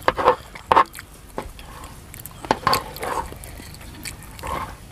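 Close-up eating sounds: chewing and smacking mouthfuls of green papaya salad and egg omelette, with a metal spoon scooping and clicking against a metal tray. Short, irregular clicks and mouth sounds with gaps between them.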